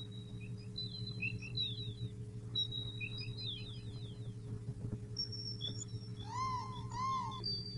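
Jungle soundscape of birds: quick chirps and whistled notes with falling sweeps over a steady low hum, and from about six seconds in a repeated call of arched rising-and-falling notes, two at a time.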